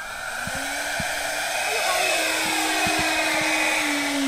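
The twin electric ducted-fan motors of a scratch-built model Boeing 737 whine steadily as the plane is hand-launched and climbs away. The whine grows louder over the first couple of seconds, and its pitch drops a little near the end.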